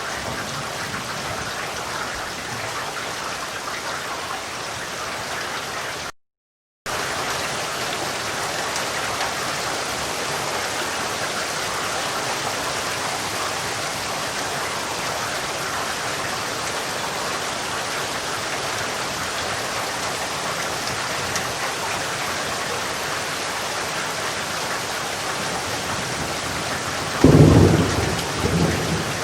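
Steady rain falling, an even hiss, which cuts out completely for about half a second around six seconds in. Near the end a sudden clap of thunder rumbles in over the rain and is the loudest sound.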